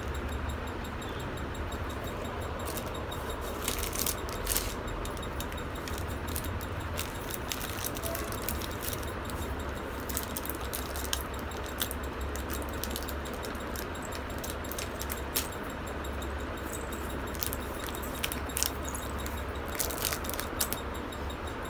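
Light, scattered jingling and clinking of a baby's silver anklet bells and bangles as it moves, over a steady low hum.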